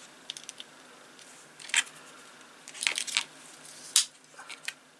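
Small plastic clicks and taps from handling a battery holder and a small circuit board with its cable plugs: a handful of short, sharp clicks, the loudest about four seconds in.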